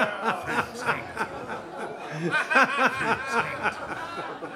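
Audience laughing in reaction to a roast punchline, several voices at once, with the loudest burst of laughter about two and a half seconds in.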